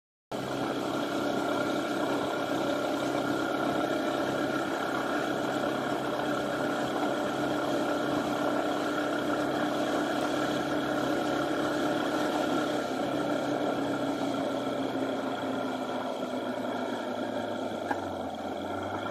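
Honda FTR223's air-cooled single-cylinder four-stroke engine running steadily under way, with wind and road rush. The sound cuts in suddenly at the very start, and the engine note dips slightly in pitch near the end.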